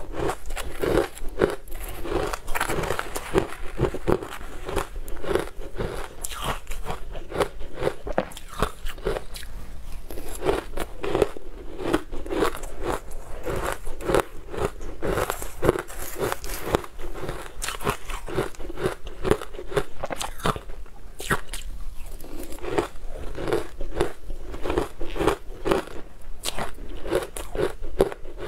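Close-miked mouth crunching and chewing of ice dusted with green powder, with dense, uneven crunches several times a second throughout.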